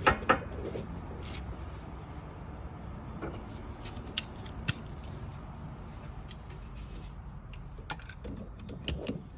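Scattered light metal clicks and clinks of hand tools, a socket being handled and fitted, over a steady low hum.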